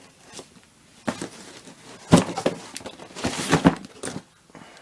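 Taped-shut cardboard shipping box being opened: a few short scraping, rustling bursts of packing tape and cardboard, the loudest about two and three and a half seconds in.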